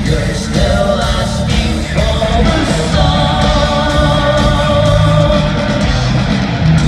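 Rock song with a singer holding long notes over the band.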